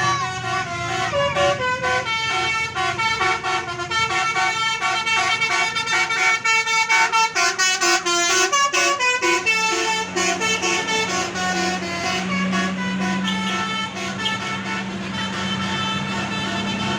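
A bus's telolet horn playing a quick melodic tune of changing notes for about the first nine seconds. Then a steady low drone takes over and swells briefly, the bus's engine running.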